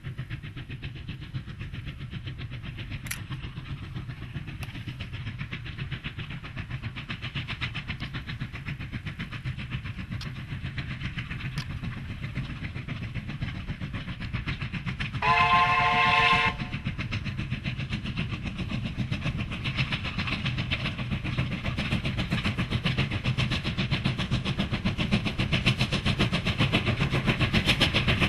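Double-headed QJ class 2-10-2 steam locomotives working toward the listener, their exhaust beating rapidly over a low rumble that grows louder as they come closer. One whistle blast of about a second sounds a little past halfway and is the loudest moment.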